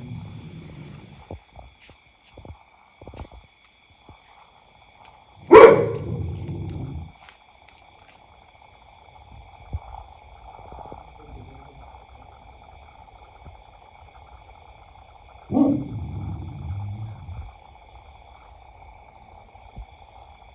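A dog barking loudly twice, about ten seconds apart, each bark trailing off over a second or so.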